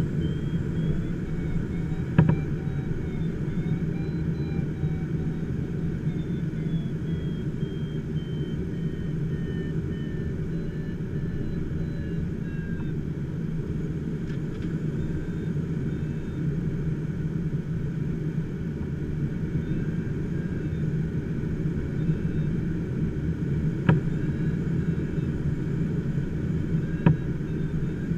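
Steady rush of airflow around the cockpit of an HK-36 motor glider gliding with its engine stopped. A faint whistling tone slowly falls in pitch through the first half, and there are a few sharp clicks.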